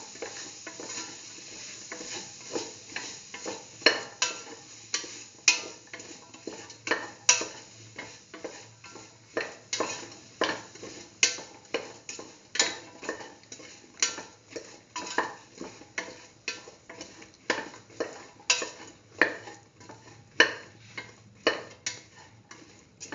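A utensil stirring ash gourd pieces and onions around a hot metal pan. It clacks and scrapes against the pan about once or twice a second, over a faint sizzle of frying oil.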